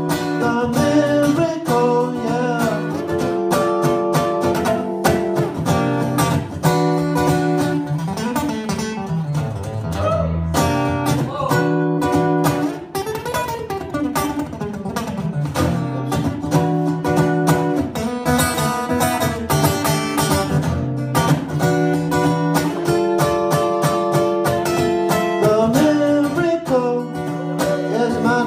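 Acoustic guitar strummed in a steady rhythm, playing a song live.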